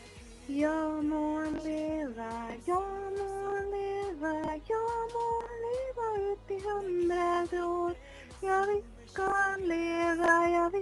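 Music: a simple melody of long held notes stepping up and down in pitch, starting about half a second in.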